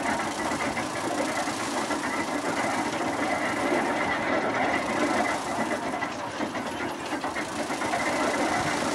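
Wooden threshing machine running steadily as sheaves of corn are fed into its drum: a continuous mechanical rattle and whir with a thin steady tone above it.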